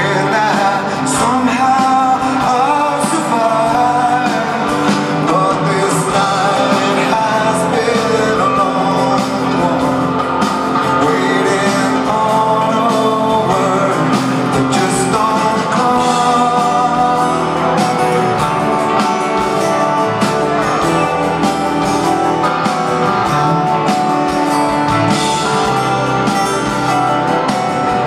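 Rock band playing live in an arena: a male singer over acoustic guitars and drums, recorded from within the crowd.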